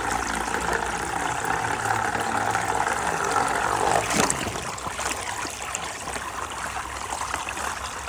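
Running water with a motor humming steadily over it; the hum stops about four seconds in with a short knock, leaving the water running.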